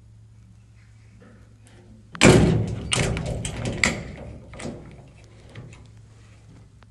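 A sudden loud clatter of knocks and bangs lasting about two seconds, then a few lighter knocks, over a faint steady hum.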